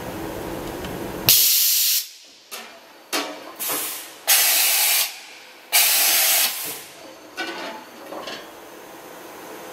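Hardinge VMC-1000-II machining center's umbrella tool changer cycling. A steady machine hum stops about a second in, then come three loud compressed-air hisses of under a second each, with several shorter puffs of air between and after them, as the carousel swings in under the spindle and back out.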